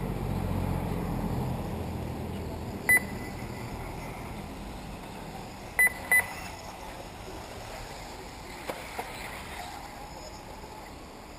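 Short, high electronic beeps from the race's lap-timing system, registering buggies crossing the line: one about three seconds in, then two in quick succession about six seconds in. Under them runs a low, steady background rumble that fades over the first few seconds.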